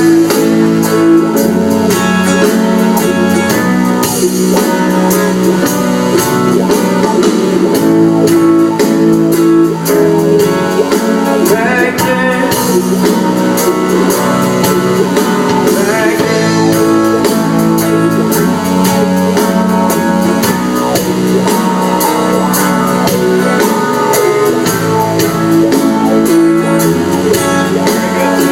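Live band playing a song at a sound check: guitar and drum kit, with some singing.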